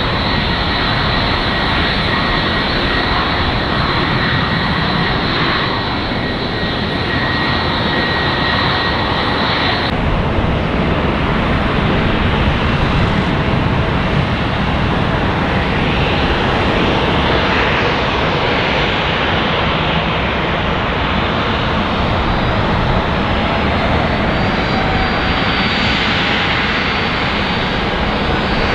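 Jet airliner engines: a twin-engine airliner taxiing close by with a steady high whine over its engine noise, then, after an abrupt change about ten seconds in, the broad jet roar of aircraft on the runway, slowly swelling and fading.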